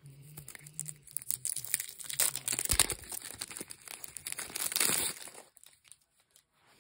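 Plastic wrapping on a deck of game cards crinkling and crackling as it is handled and pulled at, in two spells, with a dull knock just before three seconds in.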